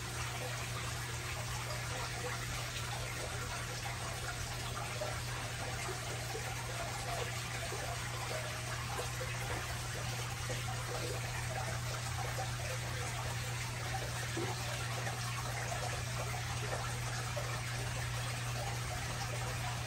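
Aquarium filter running: a steady trickle of water with a constant low hum underneath.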